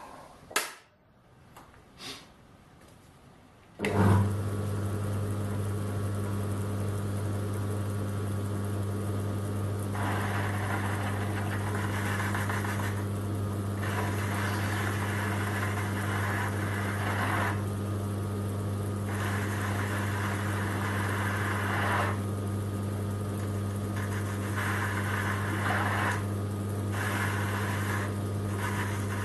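A few light clicks, then an electric lathe is switched on about four seconds in and runs with a steady motor hum. Repeated stretches of cutting noise, each lasting a few seconds, come as a cam-lock pull-down shaft is machined to fit.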